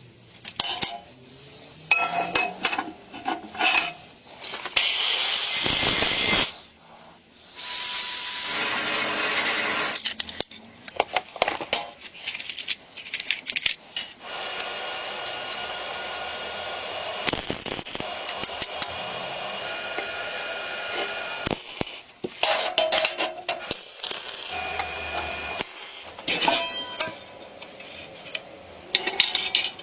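Metalworking on a gas tank: a string of sharp clinks and knocks, broken by several stretches of steady scraping or cutting noise from hand or power tools.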